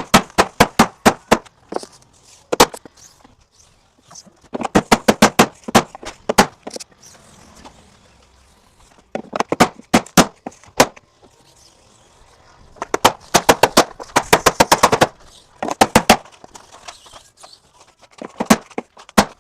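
Hammer striking a block of wood in quick runs of sharp blows, several a second, driving aluminum sill tracks down into a vinyl window frame. The blows come in bursts of a second or two with short pauses between, as the barbed tracks resist seating.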